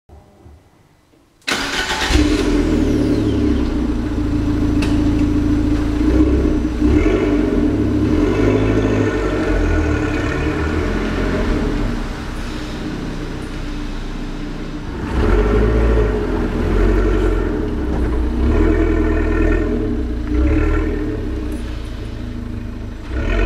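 Fiat 500 Abarth's turbocharged 1.4-litre four-cylinder on its stock rear silencer, starting about a second and a half in, then running and being revved inside an underground garage before the car pulls away.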